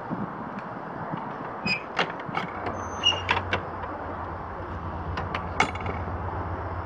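Distant Class 70 diesel locomotive: a low engine drone sets in a couple of seconds in and holds steady. Sharp clanks and short metallic squeaks are scattered through the middle.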